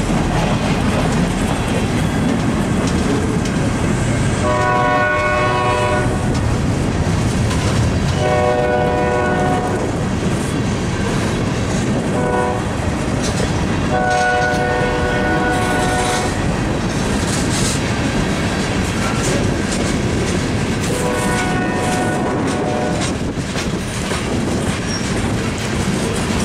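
Freight cars of a passing train rolling by close, with a steady rumble and wheel clatter over the rail joints. The locomotive's horn, further up the line, sounds a chord in separate blasts: long, long, short, long (the grade-crossing signal) starting about five seconds in, then again near the end.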